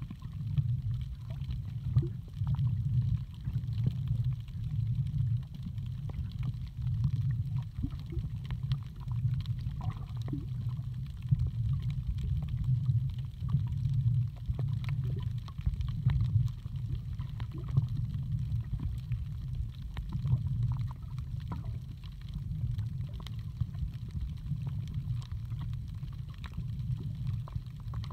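Muffled low rumble of sea water heard from underwater, swelling and easing irregularly with the water's movement, with faint scattered clicks and crackles.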